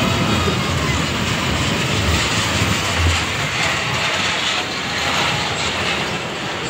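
Dragon-themed fairground ride train running along its steel track as it passes close by and moves away. Its low rumble is strongest in the first few seconds, then eases.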